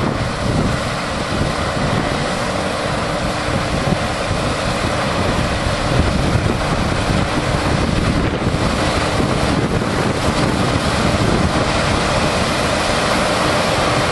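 Claas Lexion 580 TT combine harvester and a tractor pulling a chaser bin running together while cutting oats and unloading on the move, a steady machine drone with a faint constant hum. Wind buffets the microphone, and the sound grows slightly louder as the tractor draws near.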